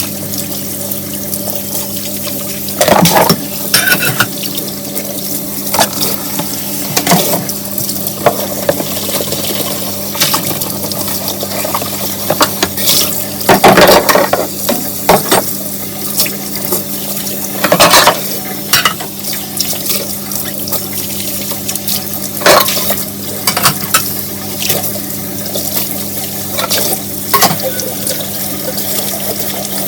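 Dishes being washed at a sink under a running tap: steady water flow with intermittent clinks and clatters of dishes and cutlery. The loudest clatters come about three seconds in, around fourteen seconds and around eighteen seconds.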